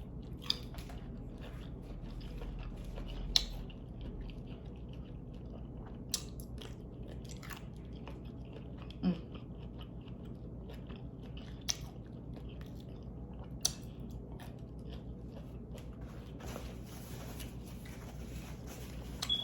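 Close-up mouth sounds of biting and chewing steamed tiger prawns, with a handful of short sharp clicks scattered through it over a steady low hum.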